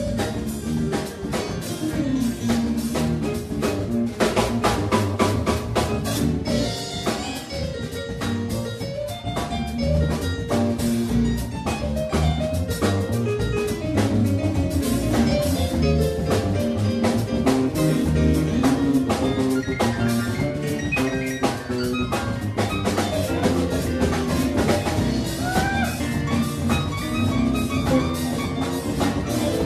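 Live small band playing a funk tune on drum kit, electric guitar and electric bass, with a steady beat.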